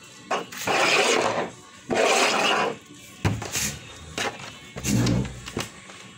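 Hands handling raw sausage links and laying them on a countertop: two longer rubbing, rasping noises in the first three seconds, then a few soft knocks and a dull thud with a shorter rub near the end. Quiet background music runs underneath.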